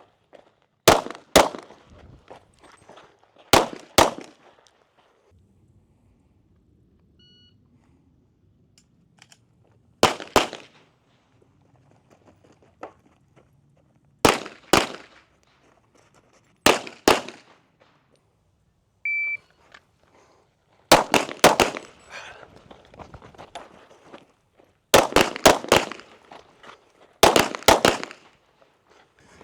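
Handgun gunfire: pairs of shots several seconds apart. About nineteen seconds in, a shot-timer start beep sounds, followed by three quick strings of three or four shots each, as in a timed target-transition drill.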